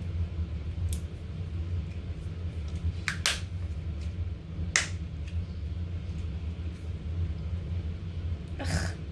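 Sharp pops and clicks from handling putty slime: four in all, two of them close together about three seconds in, over a steady low hum.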